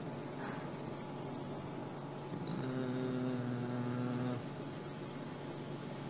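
Low steady hum, with a louder droning tone of constant pitch for about two seconds in the middle.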